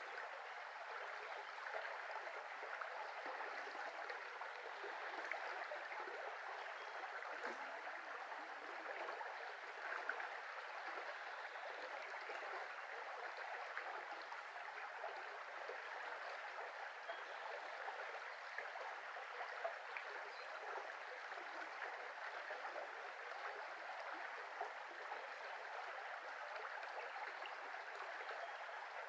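Small shallow brook flowing, a steady, even babble of running water.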